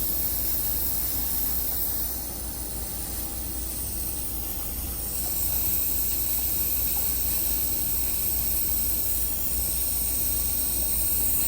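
Steady hiss of propane escaping at the valve and adapter while a butane canister is refilled from a propane tank. It eases off a little about two seconds in, then comes back to full strength.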